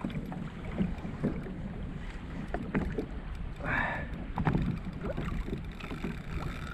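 Water lapping and slapping against a fishing kayak's hull on a light chop, with wind on the microphone and scattered small clicks and knocks from gear on the boat.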